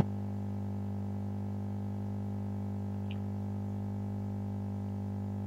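Steady electrical mains hum, a low buzz with a second tone an octave above it, with a sharp click at the very start.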